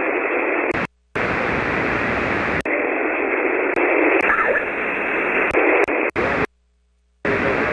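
Band-limited hiss of a ham radio receiver on a 40-metre single-sideband frequency, with no station coming through. The hiss cuts out abruptly for a moment about a second in and again for about a second near the end.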